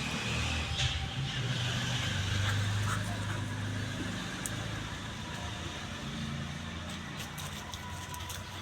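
A motor vehicle's engine running, a steady low hum that swells about two seconds in and then eases slightly.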